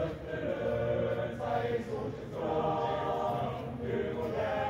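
A choir singing together in held chords, the voices coming in right at the start.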